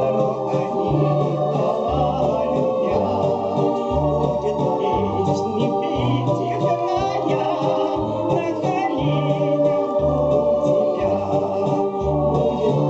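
Instrumental break in a Russian romance: organ-like keyboard accompaniment with held chords over a bass line that steps to a new note about once a second.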